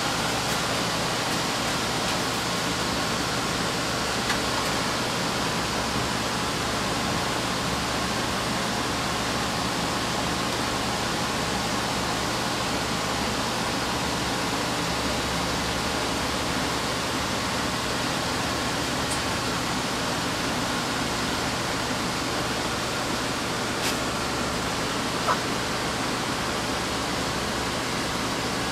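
Steady rushing noise of fans and equipment running, with a constant low hum underneath. Two faint clicks, one a few seconds in and one near the end.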